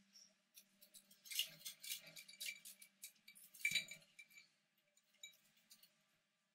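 Degus moving about their enclosure close by: a run of light, irregular clicks, taps and rustles, with a louder knock about three and a half seconds in.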